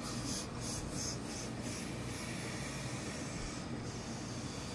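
A hose-fed industrial steam iron rubbing and sliding over wool pinstripe trouser fabric. There are several quick strokes in the first second and a half, then steady pressing, with a steady low hum underneath.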